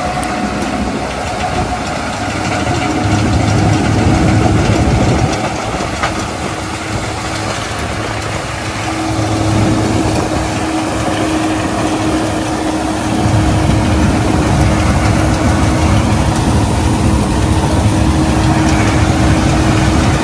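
New Holland 5500 tractor's diesel engine running steadily at about 1500 rpm in second gear medium, pulling and driving a Jagatjit straw reaper that is cutting straw and blowing it into the trailer. A steady tone sits over the engine noise from about three seconds in.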